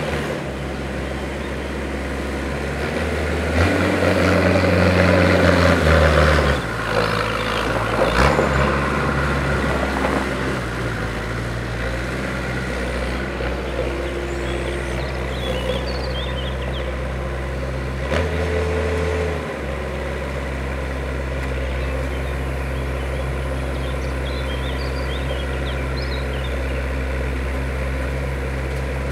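Norcar A72 mini loader's diesel engine running steadily while the loader drives and lifts its bucket, revving up louder twice: a few seconds in for several seconds, and briefly about two-thirds of the way through. Faint birdsong in the background.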